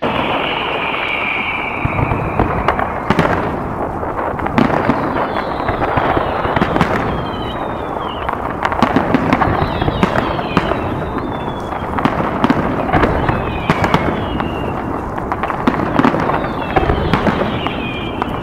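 Fireworks display going off: a dense, continuous run of bangs and crackling bursts, with short falling whistles recurring throughout.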